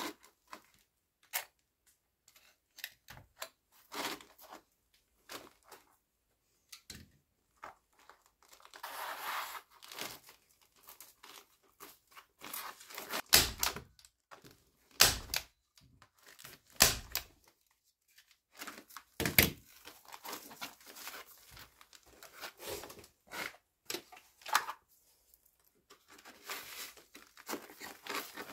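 Sheet of bitumen roofing felt being handled and cut with a utility knife: scattered rustling, scraping and crinkling. In the middle come four loud, sharp snaps about two seconds apart from a hand staple gun fastening the felt.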